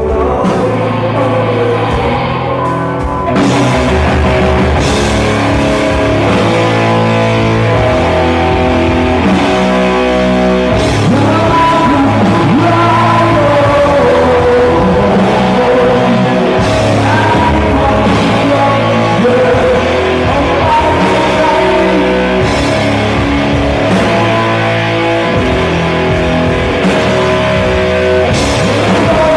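Rock band playing live with electric guitar, bass and drums. The full band comes in louder about three seconds in.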